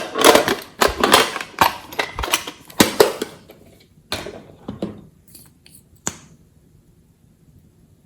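Glossy slime being kneaded and stretched by hand, giving dense sticky crackling and clicking for the first few seconds, then a few scattered pops that stop about six seconds in.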